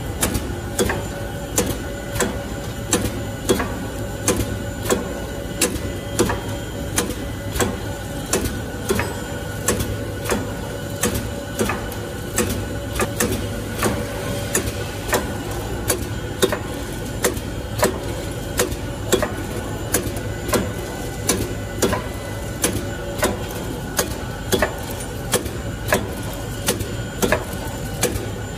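Pen-refill silicone oil filling machine running, with a steady rhythm of sharp mechanical clacks about twice a second over a low, steady hum.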